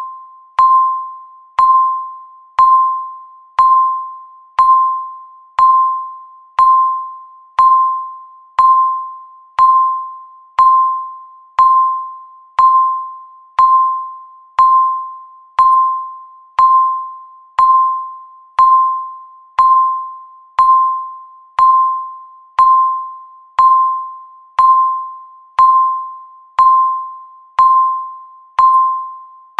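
Countdown timer beep ticking off the seconds: one electronic tone, the same pitch each time, sounding once a second, each starting sharply and fading away before the next.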